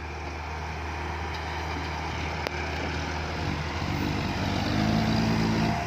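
Komatsu PC120 hydraulic excavator's diesel engine running steadily, then working harder under hydraulic load, its note growing louder and climbing from about three and a half seconds in. A single sharp click about halfway through.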